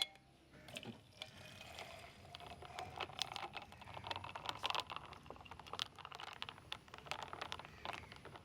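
Faint scattered clicks, taps and light scraping of kitchen items being handled, over a low steady hum.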